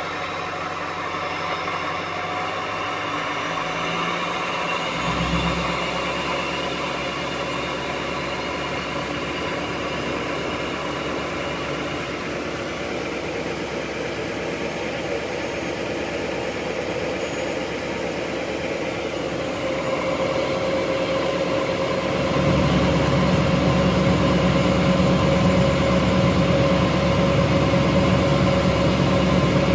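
Diesel pickup engine idling, heard right at the exhaust outlet of an axle-dump exhaust. About 22 seconds in it turns louder and deeper and stays that way.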